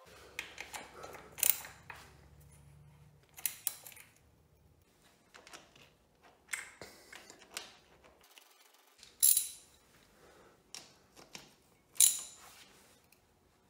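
Hand ratchet with a 12 mm socket clicking in short bursts while tightening the sump drain bolts on a Honda XR650R engine, with a few louder sharp clicks every couple of seconds.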